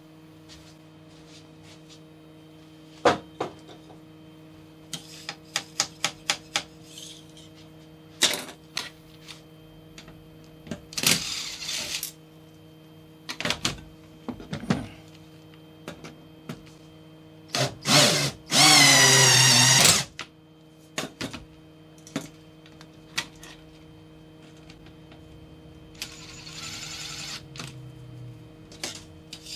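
Workshop handling sounds: clicks and knocks of tools being picked up and set down on a black steel table top, with a few short scrapes. A cordless drill runs once, briefly, about two-thirds of the way through, and this is the loudest sound.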